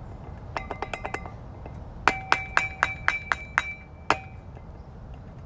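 Hard object tapped repeatedly against something that rings, making glassy metallic clinks in two quick runs: about six taps, then about nine taps over a steady ring that fades after the last one.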